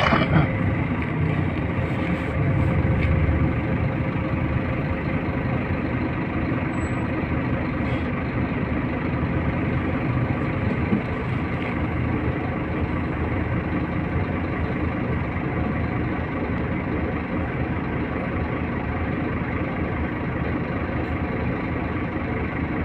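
City bus engine heard from inside the cabin. It runs a little louder in the first few seconds while the bus is moving, then idles with a steady hum while the bus stands still.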